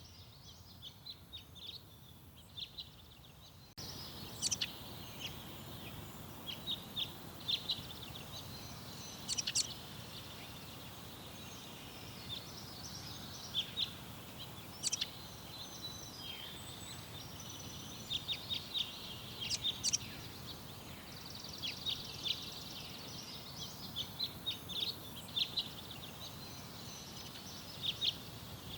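Garden songbirds chirping and singing: many short, high calls and trills, scattered irregularly over a steady outdoor background hiss. About four seconds in, the background suddenly gets louder, as at a cut between recordings.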